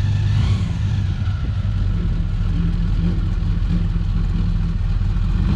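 Airboat powered by a 383 stroker small-block Chevy V8, its engine and propeller running steadily as it drives up onto a boat trailer.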